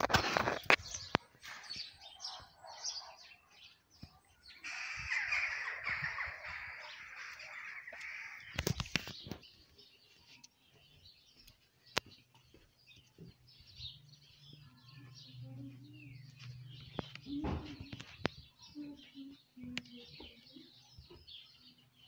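Small birds chirping in short, high calls throughout. A stretch of rustling noise and a few sharp knocks come in the first half, and a low steady hum runs for a few seconds past the middle.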